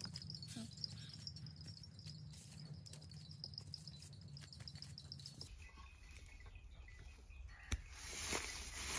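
Outdoor ambience with a faint, rapidly pulsing high chirp over a low steady hum. About five seconds in it changes abruptly to crackling rustles and a few sharp clicks of dry leaves being handled, louder near the end.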